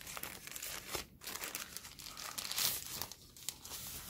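Thin wrapping sleeve crinkling and rustling in irregular bursts as a clear phone case is slid out of it by hand, with a short pause about a second in.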